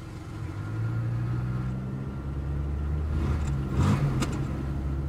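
Car engine running steadily, building up about a second in as the car drives off, with a couple of short clicks about four seconds in.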